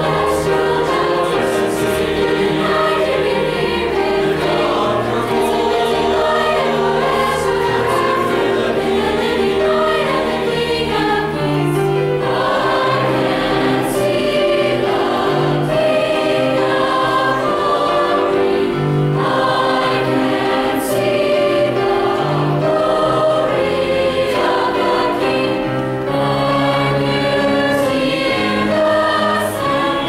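Mixed-voice high school choir of girls and boys singing in harmony, holding chords that change every second or two.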